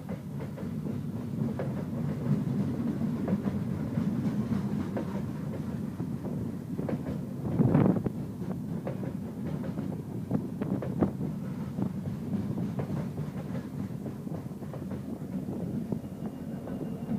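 CN Rail train rolling past, its wheels clacking over rail joints with a steady low rumble, and one louder knock about eight seconds in.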